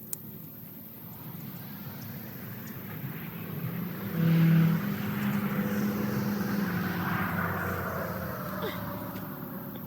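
A motor vehicle passing by: it grows louder over a few seconds, is loudest about four seconds in, then fades away.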